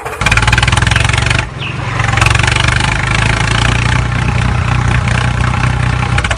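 A small motor or engine running with a fast, even pulsing beat. It stops briefly about a second and a half in, then starts again.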